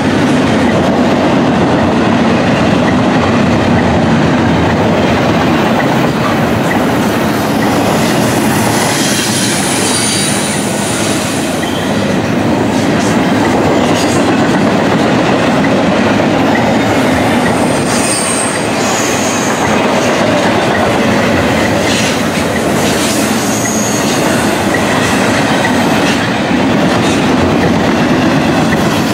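Long freight train of double-stack intermodal container cars rolling past: a steady loud rumble and clatter of steel wheels on rail, with a few brief high-pitched wheel squeals.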